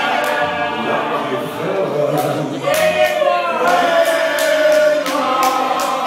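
Many voices singing together over music, holding long notes, with a few sharp hits scattered through.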